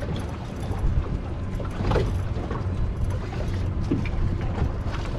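Steady low rumble of wind and water around a small boat, with a couple of faint knocks about two and four seconds in.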